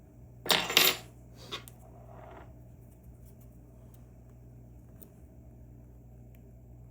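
Handling of the key and the lock cylinder of an Assa Twin V10: a short clatter of clicks about half a second in, a single click a second later and a brief scrape, then only a low steady hum.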